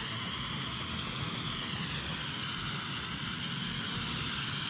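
Small toy quadcopter's electric motors and propellers whining as it flies low, the high whine wavering slowly up and down in pitch as it manoeuvres.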